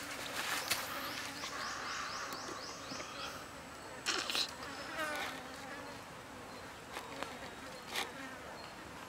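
Insects buzzing, with a rapid series of high chirps in the first few seconds. Brief handling noises of raw chicken wings being picked up sound around the middle and near the end.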